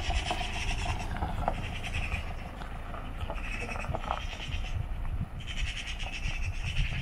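An animal giving several drawn-out cries, each about a second long, over a steady low rumble.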